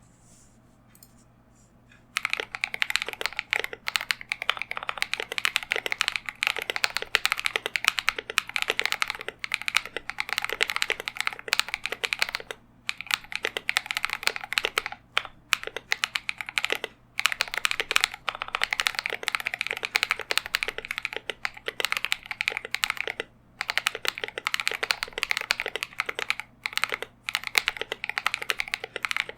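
Fast, continuous typing on a KBD67 Lite mechanical keyboard with KTT Rose linear switches that are lubed with Krytox 205g0 and filmed. The typing starts about two seconds in and runs as a dense patter of keystrokes, broken by a few brief pauses.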